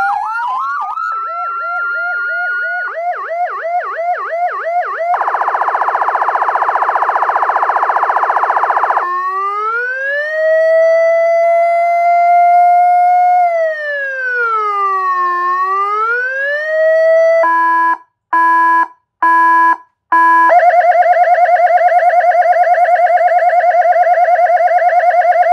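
Siren sounding through a series of different tones. A rising sweep turns into a fast warble, then comes a steady buzzing horn tone for about four seconds, then a slow wail that rises, falls and rises again. Three short beeps follow, and it ends on a fast warble.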